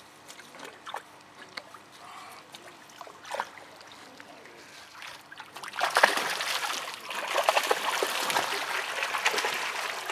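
Öland goose splashing hard in a pond. After a few quiet seconds with faint ticks, loud continuous splashing starts about six seconds in and runs for about four seconds.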